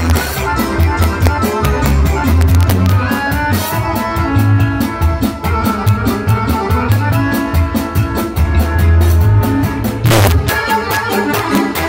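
Live band music: an accordion playing a melody over a drum kit with a fast, steady cymbal beat and a bass line. A cymbal crash rings out a little before the end.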